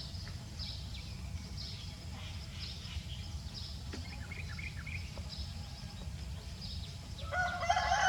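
Small birds chirping over and over in short high notes, over a steady low rumble. Near the end a rooster starts crowing.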